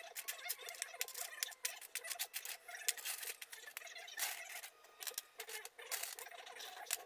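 Small metal screw hooks and screws being picked out of a tray of hardware and handled over a wooden tabletop: a run of irregular light clicks and clinks.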